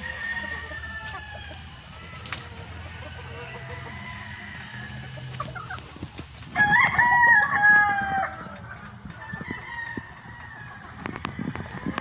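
A gamefowl rooster crows once, a call of about a second and a half just past the middle, the loudest sound here. Hens cluck softly around it.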